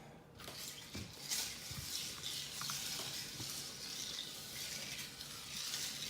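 Freshly poured carbonated soda fizzing over a bowl of crushed ice: a steady crackling hiss, with a few soft knocks about one and two seconds in.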